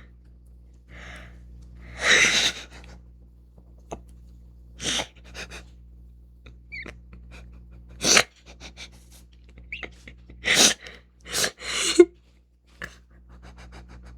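A person's breath sounds: several short, noisy exhales and sniffs, spaced a few seconds apart, over a steady low electrical hum.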